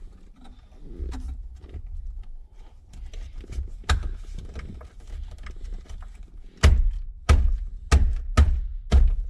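A series of thunks as a steering wheel's cover is knocked back into place by hand: one about four seconds in, then five loud ones about half a second apart near the end.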